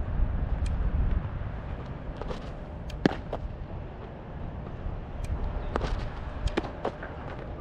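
Low rumble of wind on the microphone, broken by a few sharp knocks: the loudest about three seconds in, and a quick pair a little after the pitcher's arm comes through, which fits the change-up popping into the catcher's mitt.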